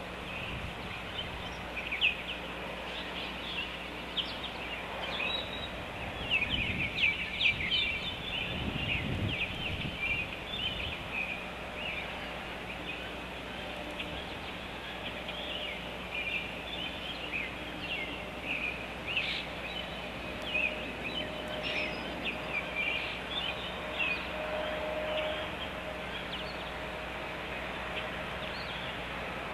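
Great blue heron chicks in the nest making quick, high, chattering calls in bursts, busiest about a quarter of the way in and again just past the middle. Steady outdoor noise runs underneath.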